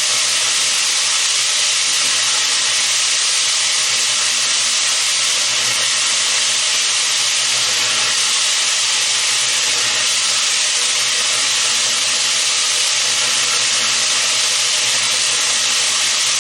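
Cement mixer turning a load of lead #00 buckshot with 5/8-inch steel balls: a steady, dense rushing clatter of tumbling shot, with a faint motor hum beneath. The steel balls are polishing the rough broken-apart pellets.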